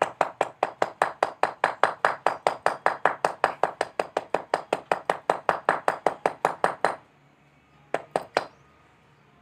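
Brake master cylinder being knocked rapidly against fluid-soaked cardboard on concrete to shake out the leftover brake fluid: an even run of sharp knocks, about six a second, that stops about seven seconds in, then three more knocks near the end.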